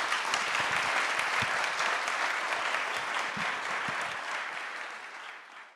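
An audience applauding, with a dense patter of many hands clapping that fades out near the end.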